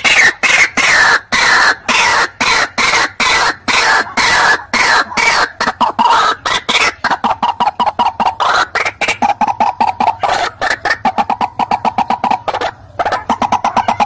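White-breasted waterhen calling: a fast, unbroken run of harsh repeated notes, about five a second, the ruak-ruak call used as a hunting lure.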